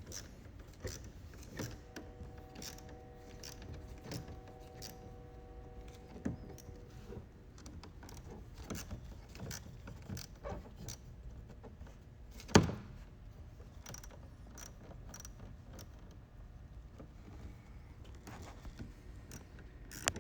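Hand tools and bumper fasteners clicking and clinking as a car's rear bumper is unbolted, with one sharp knock about twelve and a half seconds in. A faint steady hum runs between about two and seven seconds in.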